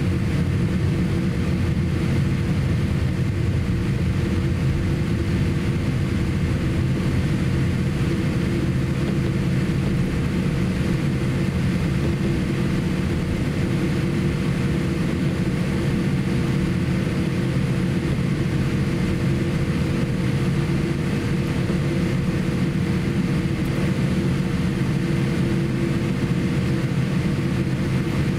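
Cabin noise of a Boeing 787-8 taxiing: a steady low rumble from its GE GEnx engines at taxi power, with a constant hum over it.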